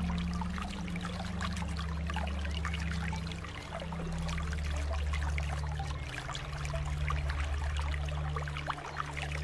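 Swimming pool water trickling and lapping in a steady stream of small splashes, over a low steady hum.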